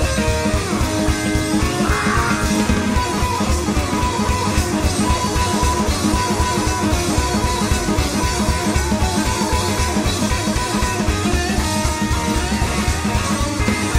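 Live rockabilly band playing an instrumental stretch with no vocals: guitars, upright bass and drum kit keeping a steady, driving beat.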